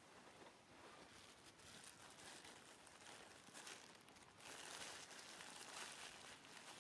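Near silence: faint hiss with soft rustling and crackling, slightly louder a little past the middle.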